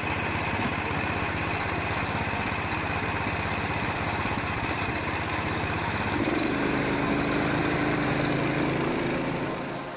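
Small engine of a motorised snow tow (motor-dog) running steadily under load as it pulls a sled over snow. About six seconds in, a steady whine joins for a few seconds.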